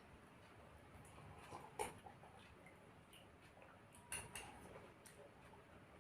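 Near silence broken by a few faint, short clinks of cutlery on a plate, one about two seconds in and a couple more around four seconds in.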